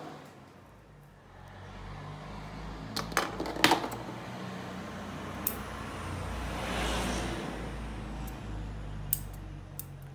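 Fabric rustling as a dress is handled, with a few sharp small clicks, the loudest a quick cluster about three and a half seconds in, and a steady low hum underneath.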